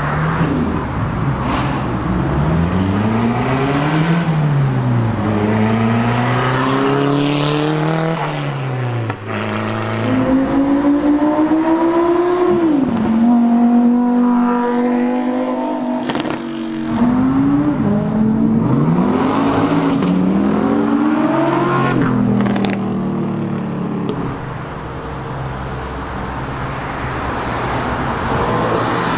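Several performance cars accelerating hard past one after another, starting with a BMW M3, engines revving up through the gears: the pitch climbs, drops at each upshift, then climbs again.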